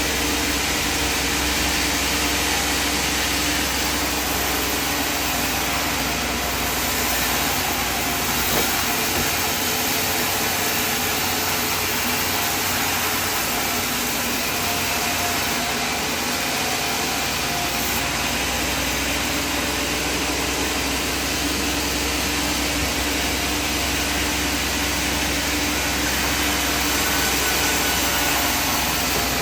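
Sawmill machinery running steadily: a constant mechanical hum under a broad hiss, with no distinct cuts, knocks or pauses.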